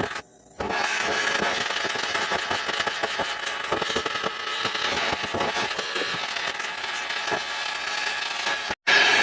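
Steady hiss of a gas flame heating a crucible to melt silver, with scattered crackles through it. It drops out briefly near the end, then comes back louder.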